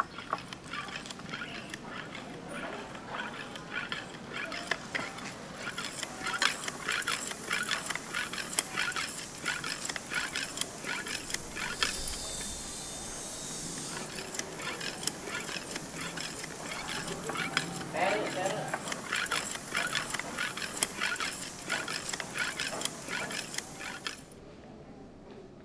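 Busy run of irregular clicks and clacks with voices mixed in, dropping away abruptly near the end.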